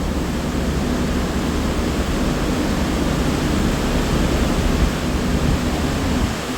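Steady, loud rush of wind and sea noise on an open ship's deck, with a low, even machinery hum underneath.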